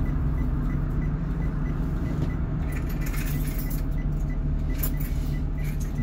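Blue Bird RE CNG school bus's rear-mounted natural-gas engine idling steadily, heard from inside the cabin, with a few light clinks and jingles of loose things rattling about three and five seconds in.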